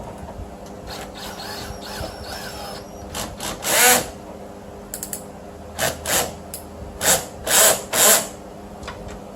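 Cordless drill/driver run in a series of short bursts, tightening the bolts that hold the window glass to a power window regulator. The bursts start about three seconds in, and there are about eight of them.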